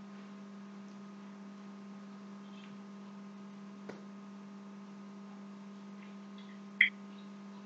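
Steady electrical hum on an open conference-call line while nobody talks, a low buzz with overtones. A faint click comes about four seconds in, and a brief sharp high-pitched blip, the loudest sound, comes near the end.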